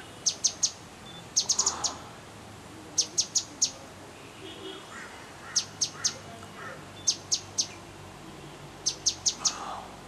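Grey-headed canary-flycatcher calling: short, sharp, high notes given in quick clusters of three to five, repeated every second or two.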